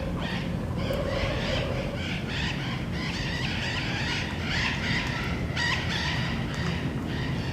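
Several parrots squawking, with short calls overlapping one another in a continuous chatter over a steady low rumble.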